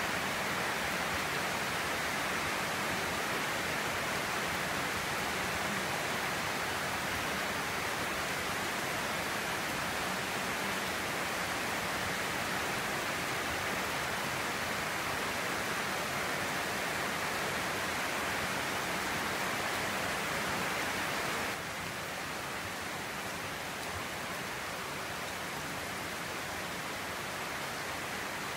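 Steady rain falling, a dense even hiss. A little past two-thirds of the way through it abruptly gets a little quieter.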